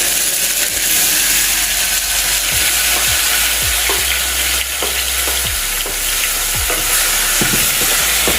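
Tomatoes sizzling in hot vegetable oil in a saucepan: a steady, dense frying hiss that sets in just as they hit the oil.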